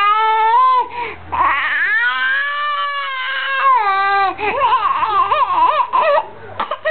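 A four-month-old baby with laryngomalacia crying in long, high wails that waver in pitch, with shorter broken cries later on. Between the first two wails, about a second in, comes a noisy, rasping breath: the stridor that laryngomalacia causes.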